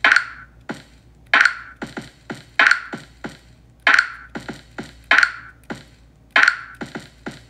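A sampled drum beat played live from an iPad's sampler app, Koala Sampler, triggered from a tiny Bluetooth MIDI controller and heard through the iPad's speaker. A loud bright hit lands about every one and a quarter seconds, with quieter hits between.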